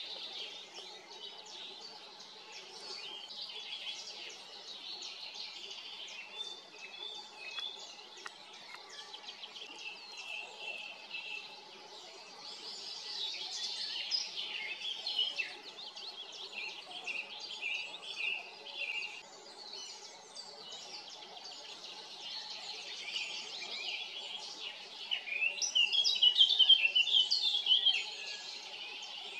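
Several small birds singing and chirping together in a steady chorus of short high notes, with one bird singing louder in a quick run of notes for a couple of seconds near the end.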